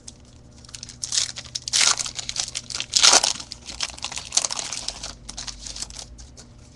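Foil wrapper of a trading card pack (2010 Topps Platinum Football hobby pack) being torn open and crinkled by hand. A run of crackling that is loudest about three seconds in and dies down after about five seconds.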